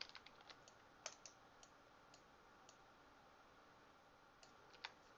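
Faint, scattered clicks from a computer keyboard and mouse over near-silent room tone: a quick run of clicks at the start, then single clicks at irregular gaps.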